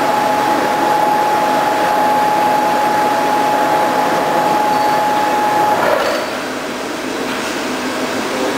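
Mazak Integrex 200SY CNC turning and milling centre running with a steady mechanical hum and a steady whine. The whine cuts off about six seconds in and the machine noise then drops a little.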